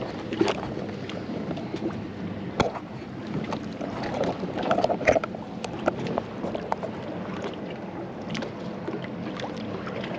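Fishing boat running on open water: steady motor and water noise, with scattered knocks and clicks, a sharp one about two and a half seconds in.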